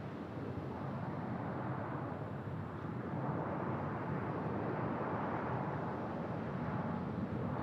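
Jet airliner engine noise building steadily louder as the aircraft draws nearer, a broad rushing sound with a faint steady whine.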